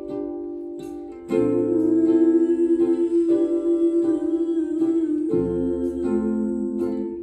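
Music: plucked strings, ukulele or guitar, playing slow held chords, with a humming voice or held tone over them from about a second in.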